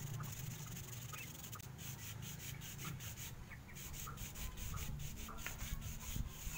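Quick, repeated rubbing strokes of a work glove sliding along a thin fishing rod, faint, with short bird chirps now and then.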